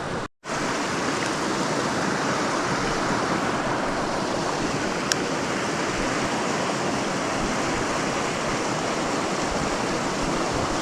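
Mountain stream rushing steadily, briefly cutting out just after the start.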